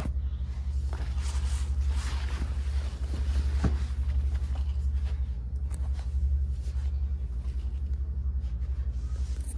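Steady low rumble with a fast flutter in it, with faint rustling and a few light knocks from handling and movement.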